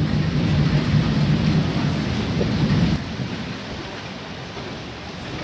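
Rain falling steadily, with a low rumble of thunder that stops abruptly about three seconds in, leaving only the rain.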